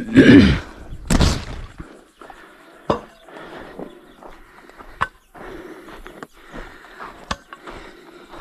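A hand digging tool striking into soil while opening channels around seedling roots. Two heavy strikes come in the first second and a half, then sharp knocks about every two seconds, with earth scraping and rustling between.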